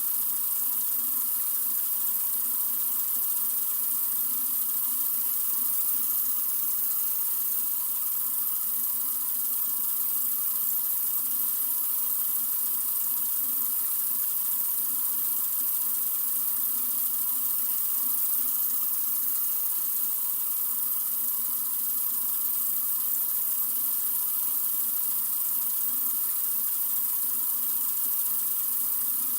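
Sink faucet running in a steady, continuous stream: an even, bright hiss that does not change.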